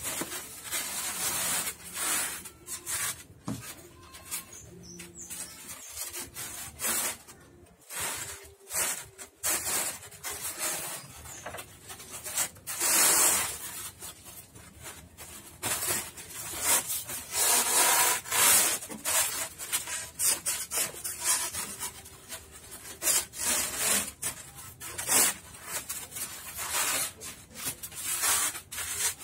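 Styrofoam sheet rubbing and scraping against the plywood floor and foam-lined sides of a wooden tub as it is bent and pressed into place by hand, in irregular strokes of varying loudness.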